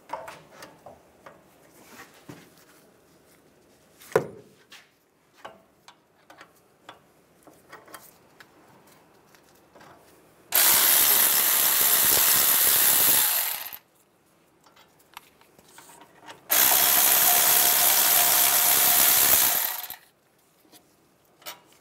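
Power ratchet with an 18 mm socket running out the two brake caliper bracket bolts, in two runs of about three seconds each. Before them, scattered clicks and a knock from hand tools on the bolts.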